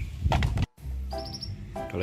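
A short chirpy, musical sound effect that plays in two bursts of quick repeated notes, coming in right after a sudden brief cut to silence.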